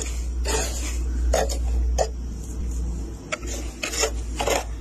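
Thick freezer frost being scraped off a freezer's inside wall with a hand tool: about six short rasping scrapes, unevenly spaced, over a steady low hum.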